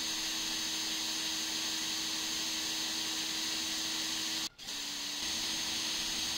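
Cordless drill spinning a drill-powered water pump, running with a steady motor whine as it pumps pool water out through a hose. About four and a half seconds in the drill cuts out for an instant, then restarts a little lower in pitch before picking back up to speed.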